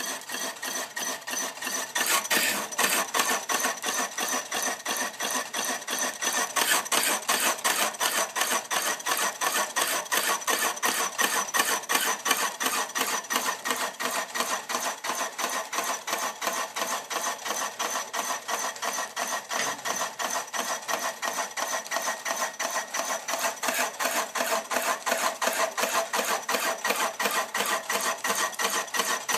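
Vintage metal-working lathe turning a wooden bowl blank, the tool-post cutter scraping wood away in a fast, even rhythm; it gets a little louder about two seconds in.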